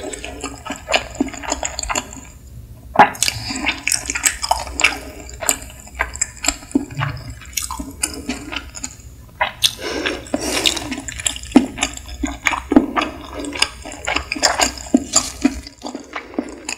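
Close-miked wet chewing and mouth sounds from someone eating sushi: a quick, irregular run of sharp, wet clicks and smacks.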